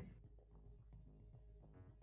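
Near silence, with only very faint background music.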